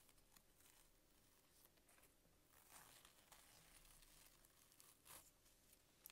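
Masking tape being peeled off a denim jacket: faint tearing strips, the clearest about halfway through and again near the end.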